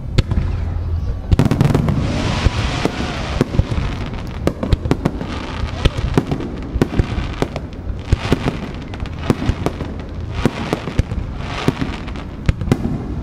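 Aerial firework shells bursting close overhead: many sharp bangs and cracks throughout, with stretches of hissing crackle from the burning stars in between, a sound like rain.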